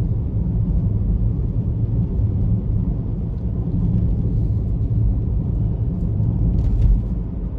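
Steady low rumble of a moving car heard from inside the cabin: engine and tyre noise while driving, with a faint short tick near the end.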